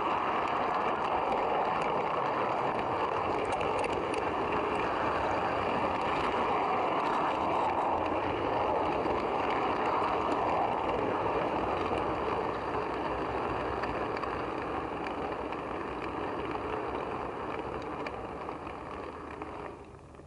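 Model train running along the track, heard from aboard a coach: a steady rolling rattle of wheels on the rails that eases off as the train slows at the platform and stops abruptly near the end.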